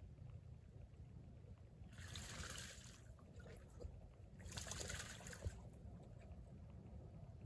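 Two short bursts of water splashing and sloshing, about two seconds in and again about halfway through, as North American beavers move through shallow water, over a faint low rumble.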